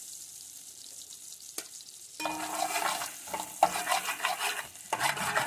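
Minced garlic frying in melted butter in a metal pot, with a steady high sizzle. About two seconds in, a metal ladle starts stirring and scraping the garlic around the pot, louder than the sizzle.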